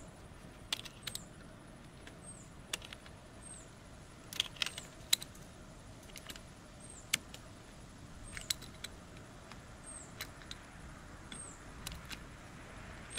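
Irregular metallic clicks and clinks of a socket wrench working the cable nut on a car battery's positive terminal, busiest about four to five seconds in. A faint high chirp recurs every second or so.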